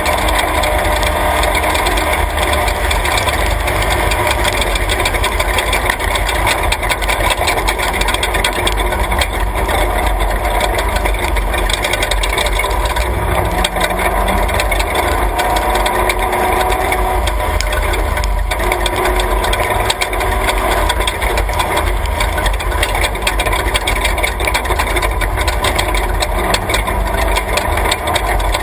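Class 3 off-road race truck driving along a dirt track: engine running steadily under load, with rattling from the rough road and wind rumble on the outside-mounted camera's microphone.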